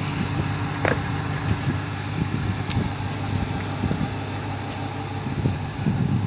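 Car-transporter truck's diesel engine idling steadily, with a few light knocks and clicks over it.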